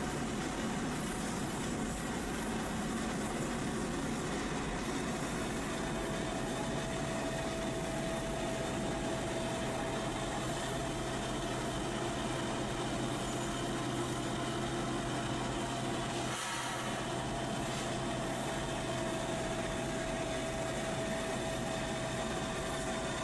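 Freight train rolling past with a steady rumble, and a thin steady whine that sets in about six seconds in and runs on.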